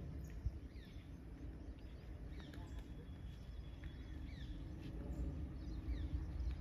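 Birds chirping in short, falling calls over a low rumble from a distant approaching express train hauled by a WAP5 electric locomotive; the rumble grows a little louder near the end. A single sharp tap about half a second in.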